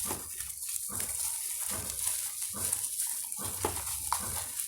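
Bubble wrap crinkling and rustling as it is unwrapped by hand from a small parcel, an irregular crackle of plastic.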